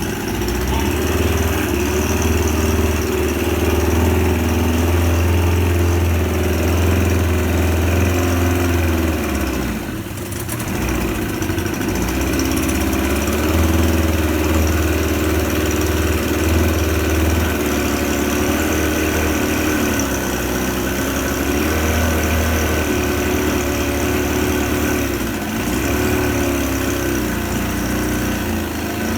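Suzuki 25 HP outboard engine running in a test tank, its speed dipping for a moment about ten seconds in before picking up again.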